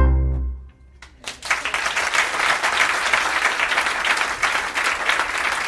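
The last low note of the music fades out, then about a second and a half in an audience breaks into steady applause.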